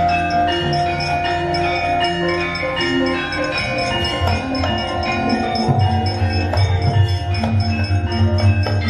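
Javanese gamelan playing accompaniment for a wayang kulit performance: bronze metallophones and gongs ring out a run of overlapping pitched notes over a low, steady pulse, and the low end grows louder and busier about halfway through.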